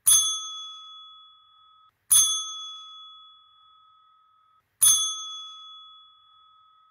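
Three clear, bell-like dings about two to three seconds apart. Each is a single struck tone that rings and fades, and the last one is still ringing at the end.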